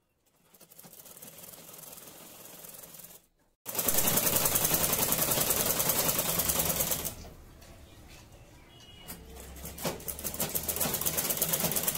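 Black domestic straight-stitch sewing machine stitching a seam in fabric, running in spurts: softly at first, then after a short stop a few seconds in, fast and loud with rapid ticking needle strokes, easing off and slowing for a couple of seconds before speeding up again near the end.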